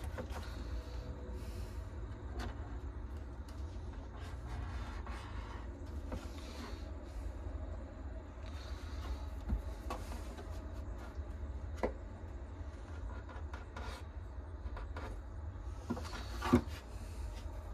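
A steady low rumble with faint rustling, broken by a few light, sharp knocks, the clearest about halfway through, near 12 seconds and near the end.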